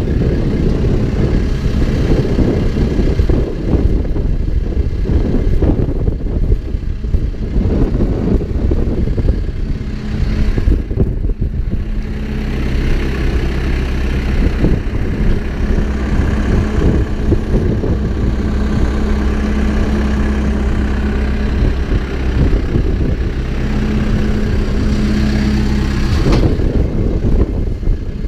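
Backhoe's diesel engine running continuously as the machine works. The sound is rough and rattly at first; from about ten seconds in a steadier engine tone comes through, rising and falling as the load changes, and near the end it turns rough again.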